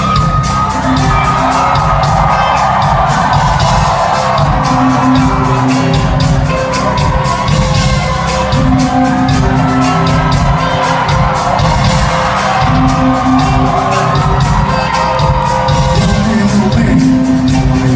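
Loud live concert music with a steady, heavy beat, and a crowd shouting and singing along.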